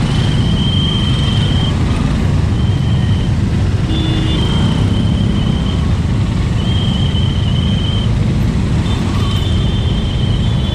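Road traffic at a standstill: motorbike and auto-rickshaw engines idling in a dense low rumble. A thin high whine comes and goes several times, each time for about a second.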